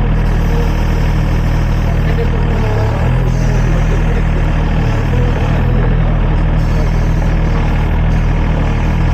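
Sany SY35 mini excavator's diesel engine running steadily, with a strong, even low hum.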